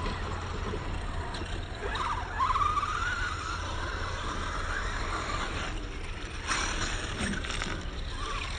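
Electric radio-controlled car running, its motor whining and rising in pitch for a few seconds from about two seconds in as it speeds up, over a steady low rumble.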